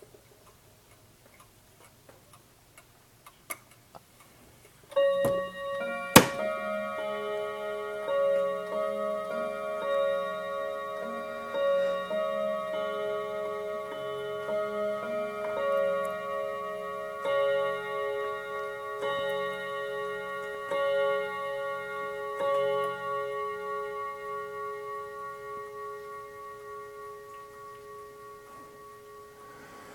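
Mechanical clock ticking faintly, then about five seconds in it begins striking on its chime, a new stroke roughly every two seconds. The ringing builds on itself and slowly fades away toward the end.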